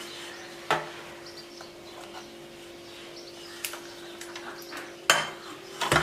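Metal-on-metal clatter as a stainless steel plate is laid over a metal loaf tin and the two are flipped to turn the cake out. There is a sharp knock under a second in, then two clanks near the end as the upturned tin lands on the plate, over a faint steady hum.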